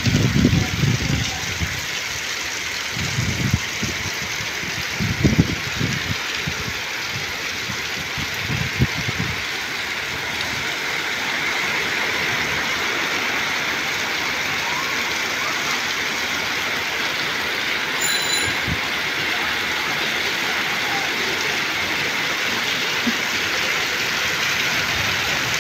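Heavy rain pouring steadily onto a paved lane and rooftops, a constant even hiss. A few low bumps come in the first nine seconds.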